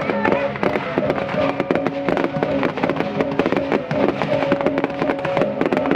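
Aerial fireworks going off in quick succession: a dense, continuous crackle of many small sharp bangs. Music with held notes plays underneath.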